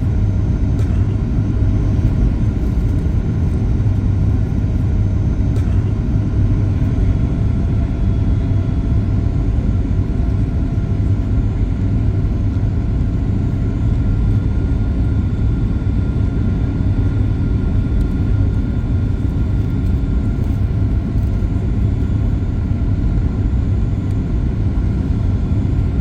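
Cabin noise inside a Boeing 737 MAX 8 rolling on the ground after landing: a steady low rumble of the engines and wheels with a faint whine.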